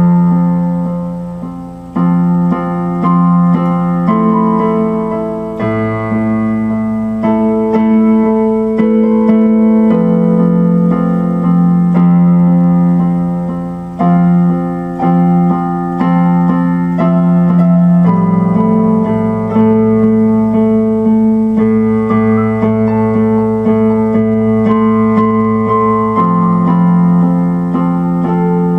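Slow, sustained chords played on an electronic keyboard in a piano voice, each chord held about two seconds, with a low bass note under some of them.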